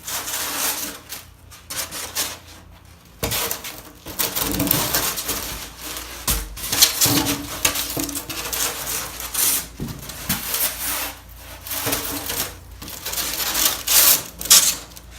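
Irregular rubbing, scraping and rustling of materials being handled by hand, with scattered knocks, during work on a kiln box.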